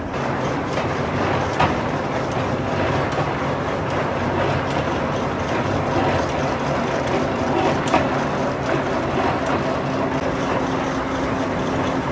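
Large belt-driven ball mill drum turning, its charge tumbling inside as it grinds ceramic raw material, a steady rumble with a couple of sharper knocks.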